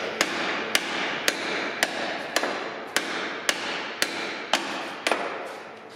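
Steady hammer blows, about two a second, around ten strikes in all, stopping just before the end.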